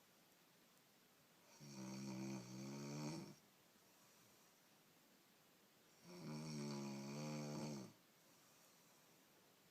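A woman snoring: two long, pitched snores, each nearly two seconds, about four and a half seconds apart.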